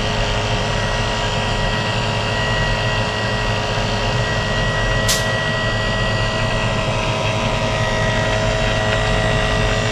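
Refrigerant vacuum pump running steadily, a constant motor drone with several steady tones, evacuating the new split air conditioner's refrigerant lines. A short high tick sounds about five seconds in.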